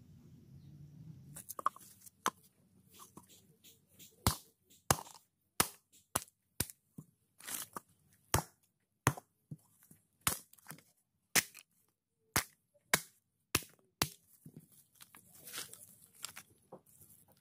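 Dry coconut husk being torn apart by hand. The coir fibres give a run of sharp cracks, about one or two a second, followed near the end by a rustling of loose fibre.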